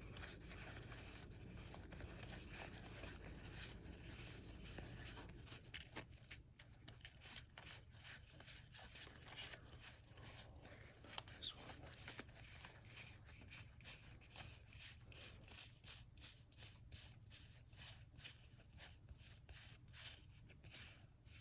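Faint handling of trading cards, a steady run of soft clicks and rustles as cards are flipped through one after another.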